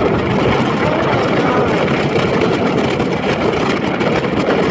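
Strong wind buffeting the microphone: a loud, continuous, rumbling rush that flutters unevenly.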